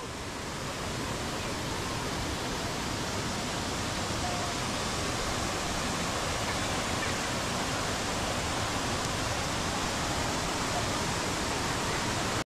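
Steady rush of water from small waterfall cascades tumbling into shallow pools.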